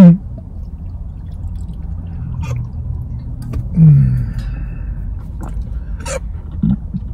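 Sips of water from a cup or bottle, with a few small clicks and a brief falling vocal sound about four seconds in, over a low steady hum.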